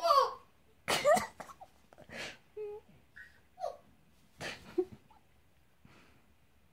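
African grey parrot vocalising: a quick run of short whistles and sliding chirps mixed with breathy, hissing bursts, loudest at the start and about a second in.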